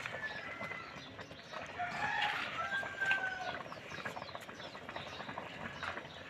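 Chickens calling, with a rooster crowing about two to three seconds in.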